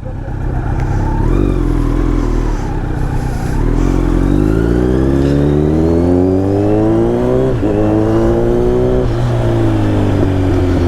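Kawasaki Z900's inline-four engine pulling away and accelerating, its pitch climbing steadily for several seconds. A brief dip comes about seven and a half seconds in at a gear change, then the revs hold and ease off near the end.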